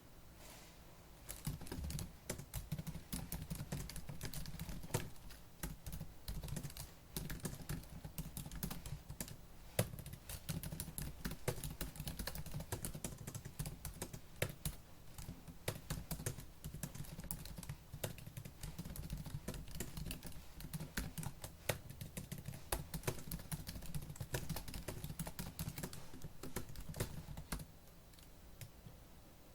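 Fast typing on a laptop keyboard: a dense, irregular stream of key clicks that starts about a second and a half in and stops a couple of seconds before the end.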